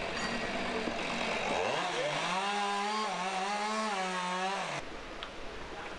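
A small engine revving up about two seconds in and held at high revs with a slight waver, then cut off suddenly near the end, over a background of outdoor noise.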